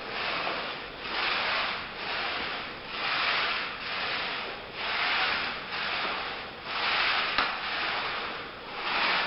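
Paint roller on a long pole rolled back and forth over sanded oak parquet, wet with white floor lye: a rubbing hiss that swells and fades about once a second with each stroke. A single small click about seven seconds in.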